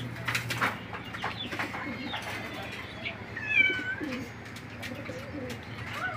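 Birds calling in the background: a short bright call about halfway through, the loudest sound, followed by low wavering cooing. A few sharp clicks in the first two seconds.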